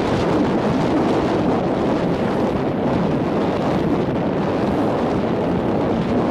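Strong wind buffeting the camera microphone, a steady loud rush with no separate events.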